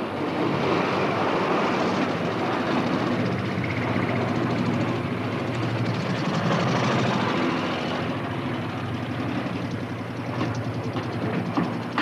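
Military truck engine running as the truck drives in slowly, a steady low engine note that eases off somewhat about eight seconds in.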